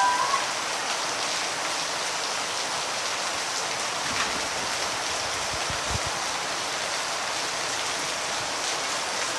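Rain falling steadily in an even hiss.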